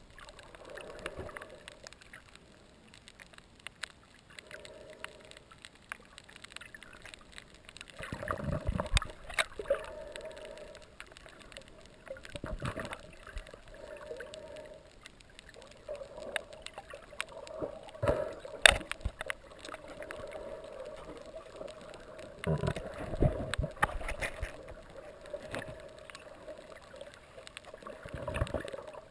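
Underwater sound of shallow reef water moving around the camera: muffled surges swell up several times, with scattered sharp clicks and a steady faint hum beneath.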